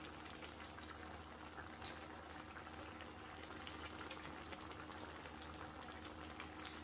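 A wide pan of white bean and carrot stew simmering: faint bubbling with small scattered pops over a low steady hum.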